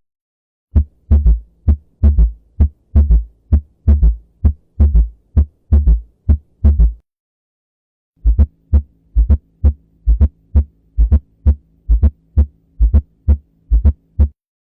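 A recorded heart sound, played as an example of an abnormal heart sound: rapid, evenly spaced low beats, about three or four a second, over a steady low hum. The beats break off for about a second partway through, then start again.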